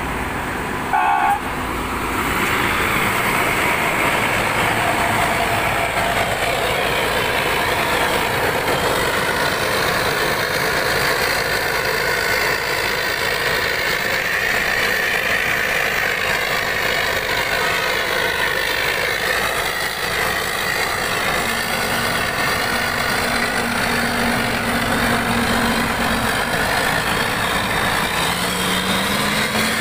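Diesel engine of an intercity bus running steadily close by, with a brief loud pitched sound about a second in. Near the end the engine note rises as the bus begins to pull away.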